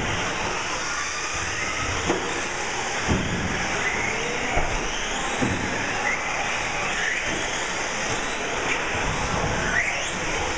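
Several radio-controlled 4WD short course trucks racing on an indoor track. Their electric motors whine, rising and falling in pitch, over a steady din, with a few sharp knocks from the trucks hitting the track or barriers.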